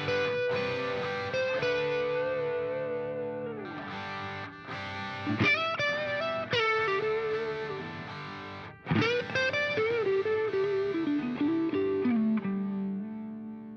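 Background music: a sustained lead melody of long, sliding, wavering notes over held tones, stepping down near the end and fading out.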